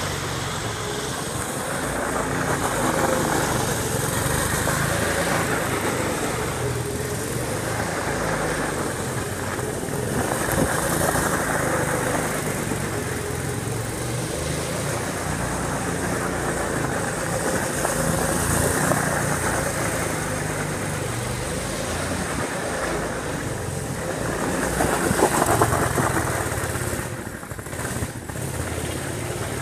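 Murray Hard Drive 200cc off-road buggy engine running under way during a quick blast, its pitch and loudness rising and falling with the throttle. The biggest surge comes near the end, then a brief drop.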